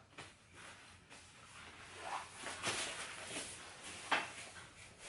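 Fabric rustling and soft scuffs as a mesh packing cube stuffed with clothes is handled and lifted by its handle.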